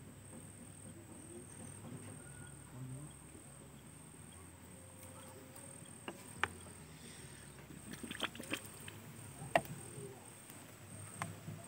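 Quiet close-up eating and handling sounds: soft mouth and hand noises, then a handful of sharp clicks and taps in the second half as a plastic water bottle is picked up and handled, the loudest about two-thirds of the way through. A faint, high, evenly pulsing tone sits underneath.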